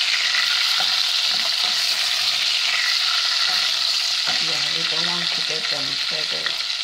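Beef meatballs sizzling in hot oil in a stainless steel pot over high heat as they brown, with a steady hiss. A wooden spoon stirs and turns them against the pot.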